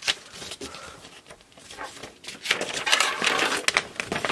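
Paper instruction sheet being unfolded and flattened by hand, rustling and crinkling, with a sharp click at the start and the loudest rustle in the second half.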